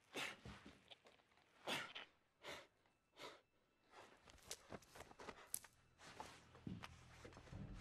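A man's faint, heavy breathing: short, ragged breaths and gasps about every second from someone hurt and winded after a fight. A low steady hum comes in near the end.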